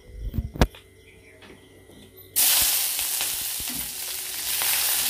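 A couple of sharp knocks, then chopped onions hitting hot oil in a metal kadai: a sudden loud sizzle about two and a half seconds in that keeps going steadily as they start to fry.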